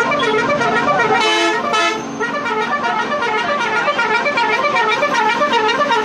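Truck horn sounding continuously, a melodic horn whose pitch rises and falls over and over, with a second, steady horn blast about a second in. It stops at the very end.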